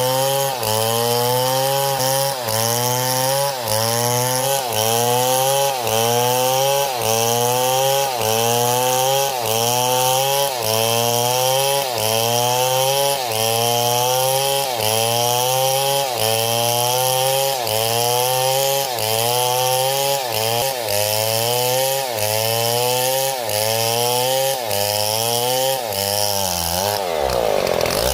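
Two-stroke chainsaw running under repeated throttle. Its engine pitch rises and falls back in a steady rhythm about once a second, and the rhythm breaks off near the end.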